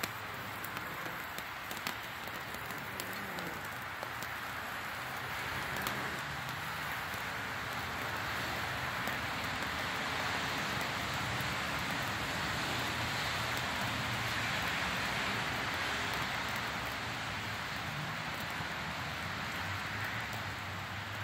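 Several metal-powder tube sparklers burning at once: a steady fizzing hiss with scattered small crackles, swelling a little in the middle.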